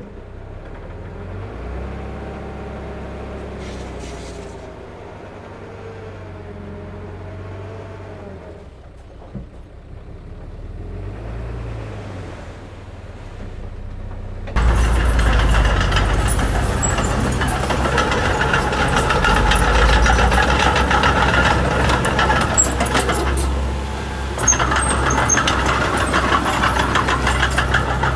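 Diesel engine of heavy earthmoving machinery running, with a faint wavering whine over it at first. About halfway in it jumps suddenly to a much louder, rougher running sound that holds steady.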